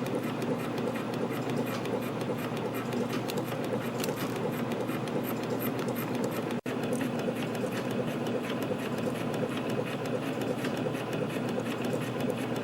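Yeou Heuy CF-310 CNC compression spring coiling machine running at production speed, coiling 0.18 mm wire into small compression springs at about 170 a minute: a steady, rapid mechanical clatter. It cuts out for an instant about six and a half seconds in.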